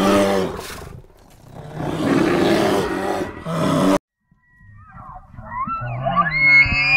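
A deep, rough animal roar comes twice and cuts off suddenly about four seconds in. After a short gap a bull elk bugles: a whistle rises and is held on a high note near the end.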